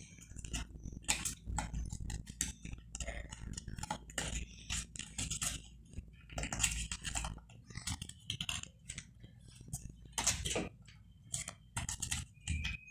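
Paper rustling and crinkling in irregular short crackles as it is folded and creased by hand.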